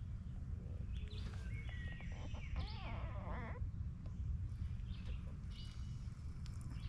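Birds chirping and calling several times, with a short trill about three seconds in, over a low steady rumble.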